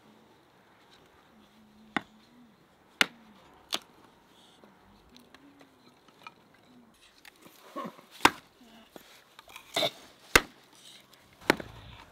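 Hatchet splitting kindling on a wooden chopping stump: about seven sharp, separate chops at uneven spacing, the first about two seconds in.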